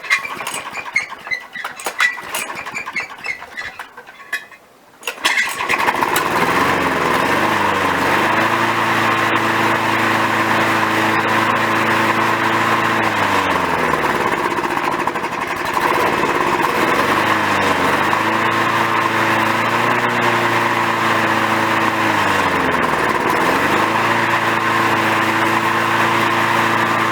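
A few seconds of clicks and knocks, then the Victa lawnmower's Briggs & Stratton single-cylinder four-stroke engine starts about five seconds in and runs steadily, its speed dipping and recovering twice.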